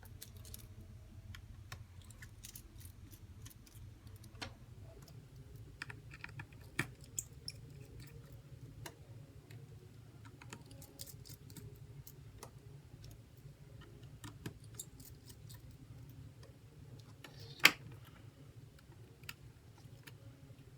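Scattered light clicks and taps of small repair tools and tiny screws against the parts of an opened iPhone 8 Plus, with one sharper click late on, over a low steady hum.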